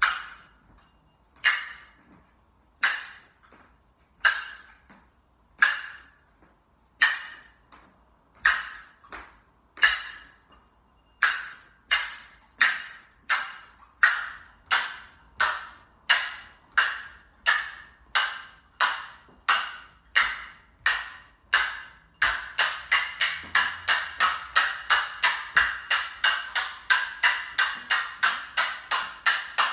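Finger cymbals (zills) struck in a steady beat that doubles in speed twice. At first there is a strike about every second and a half, then one about every 0.7 seconds from about eleven seconds in, then about three a second from about 22 seconds in. Each strike rings briefly.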